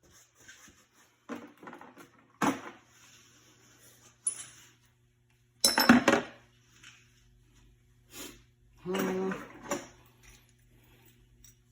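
Metal hand tools and brake parts clinking and clanking, in several separate knocks, the loudest cluster about six seconds in, with a longer scrape around nine seconds.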